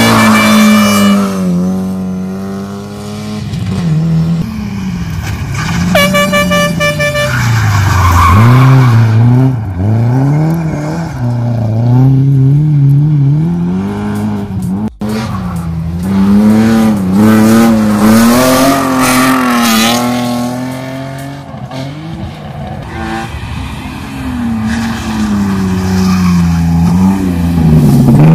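Rally cars, a Lada 2107 and later a BMW E36 3 Series, driven hard through a corner, the engine pitch climbing and dropping again and again with gear changes and lift-offs. A horn sounds once for about a second, around six seconds in.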